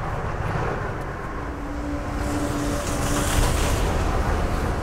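Komatsu wheel loader's diesel engine running as the machine drives past, getting louder as it comes closer. A steady whine sounds for about two seconds starting a little over a second in, and a hiss rises in the middle.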